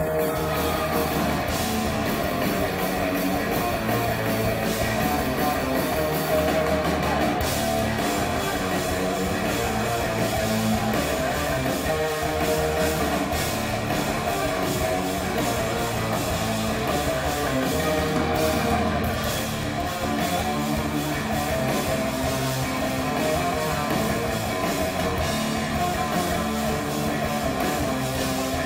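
Hard rock band playing live: loud electric guitars and a drum kit, heard over the venue's PA from among the crowd.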